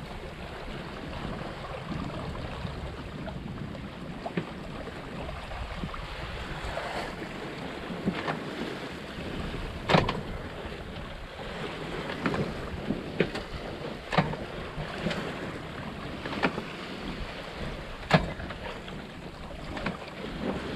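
Wind buffeting the microphone and water rushing and splashing along the hull of a Tartan 37 sailboat under sail on a broad reach. Irregular sharp knocks come every second or so, the loudest about ten seconds in.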